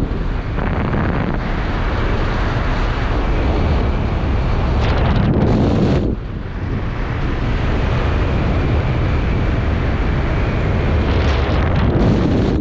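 Loud wind buffeting a helmet-mounted camera's microphone during flight under a parachute canopy, with brief lulls about six seconds in and at the end.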